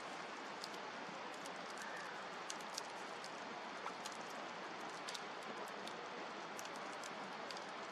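Wood campfire burning with a steady hiss and irregular sharp crackles and pops.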